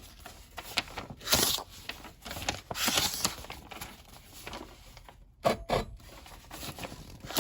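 Paper from a catalog being sliced with a freshly sharpened Kelly Perfect axe edge to test its sharpness: several short cutting strokes with paper rustling between them.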